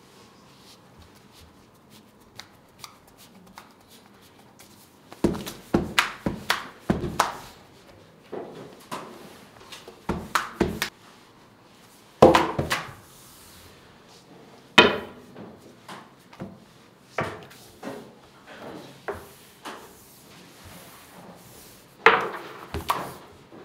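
Long thin wooden rolling pin knocking, rolling and clattering on a marble pastry table. After a quiet start comes a quick run of wooden knocks, then two sharp louder knocks around the middle, lighter scattered taps, and a last cluster of knocks near the end.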